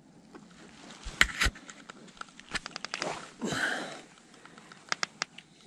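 Handling noises: two sharp knocks about a second in, a quick run of light clicks, a short rustle, then two more clicks near the end.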